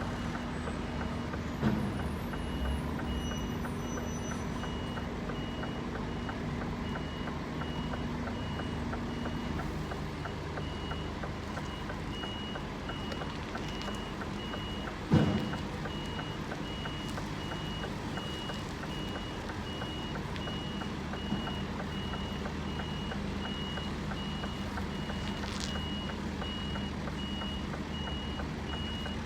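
Scania lorry reversing: its reversing alarm beeps steadily and evenly over the low, steady running of the diesel engine. A sudden loud knock comes about halfway through, with a smaller one near the start.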